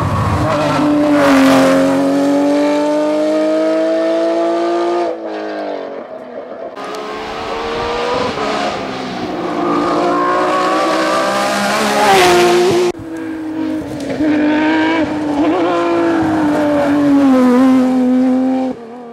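Porsche 911 GT3 rally car's flat-six engine revving hard: pitch climbs, drops sharply about five seconds in, climbs again, then falls abruptly at a gear change near thirteen seconds and runs on steadily.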